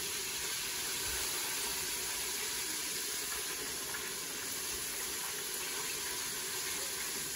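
Battered chicken pieces deep-frying in a pot of hot peanut oil: a steady sizzling, bubbling hiss.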